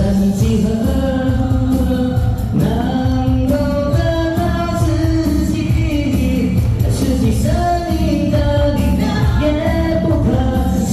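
A singer performs a slow Mandarin pop ballad, holding long melodic lines over amplified backing music with a steady beat.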